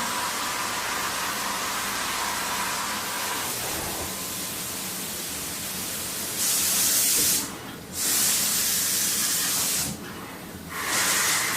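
Steady hissing noise, then three louder bursts of hissing spray, about a second or two each. The last is lower-pitched than the first two.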